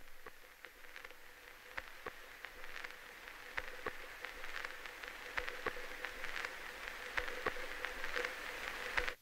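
Quiet atmospheric song intro: an irregular crackling texture over hiss with a faint held tone, slowly getting louder, then cutting off suddenly at the end.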